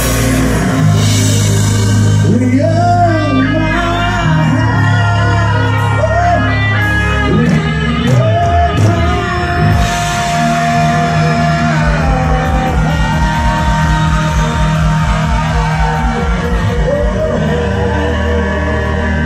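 Gospel rock band playing live and loud, with electric guitar, keyboards, bass and drums under a male lead vocal singing a wavering melody that holds one long note partway through.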